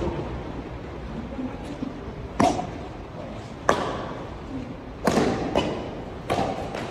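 Badminton rackets hitting a shuttlecock back and forth in a rally: four sharp strikes, each about a second and a half apart, with some faint voices in between.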